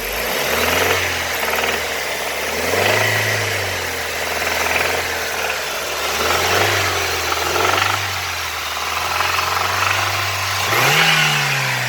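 BMW N42 four-cylinder petrol engine, warm, being revved up from idle and back down several times. The owner reports a knock that shows up only when warm and above about 2000 rpm, together with camshaft sensor errors.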